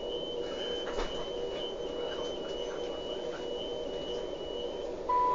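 Class 377 Electrostar door warning alarm sounding a high-pitched tone for about five seconds as the doors close at a station stop, over the train's steady hum. A falling two-note chime begins at the very end.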